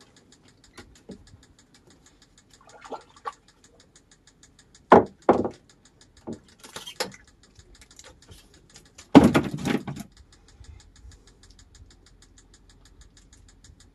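Handling noises in a small boat while a small fish is unhooked: scattered light knocks, two sharp knocks about five seconds in, and a louder clatter lasting about a second about nine seconds in.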